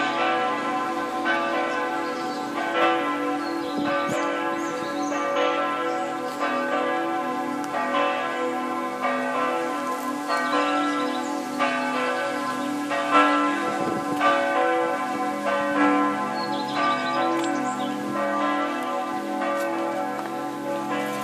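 Two swinging church bells of Västerås Cathedral, the middle bell and the weekday bell, ringing together. Their strokes fall about once a second in an uneven, overlapping pattern, each one ringing on into the next over a low hum.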